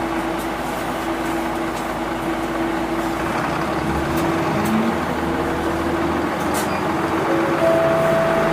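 Mitsubishi Fuso Aero Star QKG-MP38FK city bus's six-cylinder turbodiesel engine running, heard from inside the bus as a steady hum, with a higher tone joining near the end.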